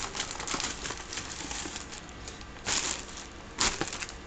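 Thin plastic shopping bag rustling and crinkling as it is handled, with two louder crinkles about two and a half and three and a half seconds in.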